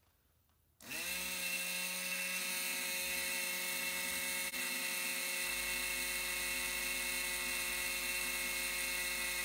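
Small DC motor taken from an old drill, switched on from a battery pack. About a second in it spins up with a quickly rising whine, then runs at a steady whine while turning a washing-machine drain pump rotor as a generator.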